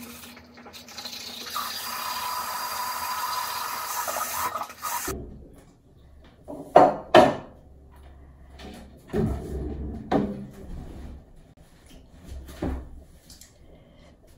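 A steady pouring sound for about four seconds, then a handful of loud, sharp crunches with chewing between them: Batdureong fried corn snack bitten and chewed on a close microphone.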